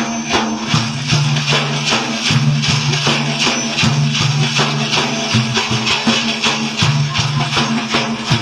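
Instrumental interlude in an Iraqi madih: hand percussion beats a fast, steady rhythm over held low bass notes, with no singing.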